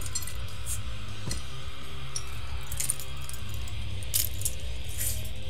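Light metallic clinks and jingles of small objects being handled, about half a dozen short ones, over a steady low hum.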